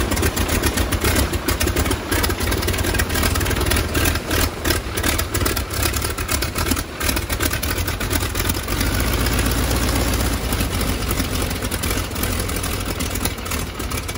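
Radial engine of a Stearman biplane running at idle with its propeller turning, a steady, loud engine note with an uneven pulsing beat.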